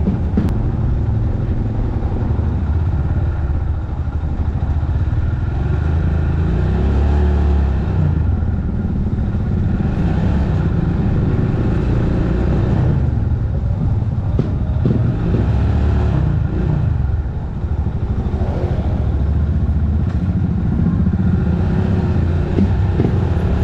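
Rusi Classic 250 motorcycle's engine running while it is ridden, its note rising and falling with the throttle, with wind and road noise.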